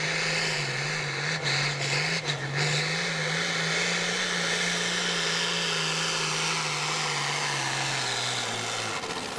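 Outlaw farm pulling tractor's diesel engine running flat out under load down the pull track, a steady engine note over a wide roar. Near the end the pitch sags and the note drops away as the run ends.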